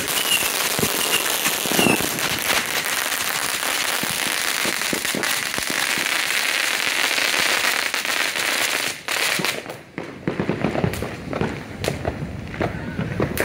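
Fireworks going off: a dense, continuous run of rapid crackles and pops. About nine seconds in it thins out to scattered separate pops.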